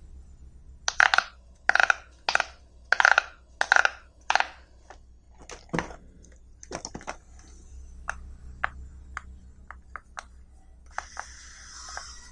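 Bubbles of silicone pop-it fidget toys being pushed through with fingers: a run of about six loud pops roughly two-thirds of a second apart, then lighter, scattered clicks. Near the end there is a rubbing rustle of the silicone being handled.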